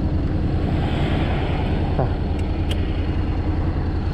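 Honda X-ADV 750's parallel-twin engine idling steadily while the scooter stands still, with two faint clicks a little after the middle.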